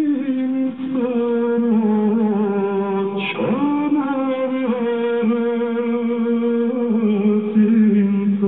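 Georgian male folk choir singing in held polyphony: a sustained low drone under a higher voice, the notes stepping to new pitches a few times, with one quick swooping slide about three seconds in. Heard as played through a television.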